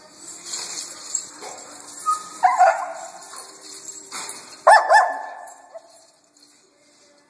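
A dog playing gives two short, high barks, about two seconds apart.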